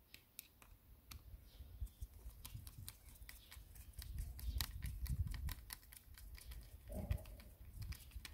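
Screwdriver driving a small screw into the earth-wire terminal on a Kärcher K5 pump housing: many irregular light clicks and ticks over a low rumble.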